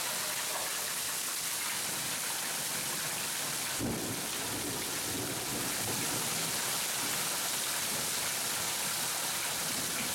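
Steady rain of a thunderstorm, with a low rumble of thunder swelling about four seconds in and fading over the next few seconds.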